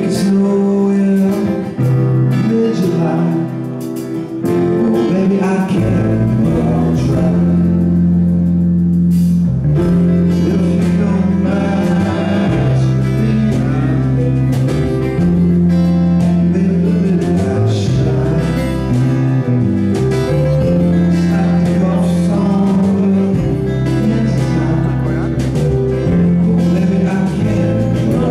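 Live band performing a song, with a male lead vocal sung into a microphone over the band. The low bass part comes in about five seconds in.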